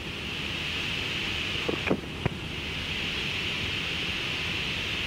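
Steady high hiss of a Boeing 777 cockpit while taxiing slowly, with two short clicks about two seconds in.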